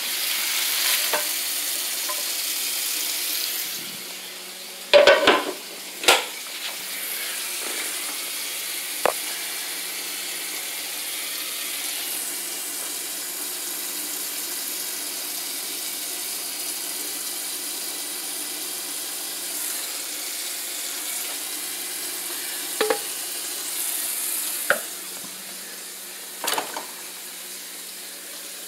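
Food sizzling steadily in a hot frying pan, a little louder for the first few seconds. There are a few sharp knocks of a utensil or pan scattered through.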